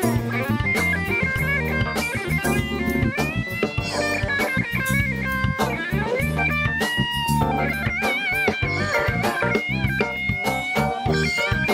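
Live band music: an electric guitar plays a lead line with bent, wavering notes over drums.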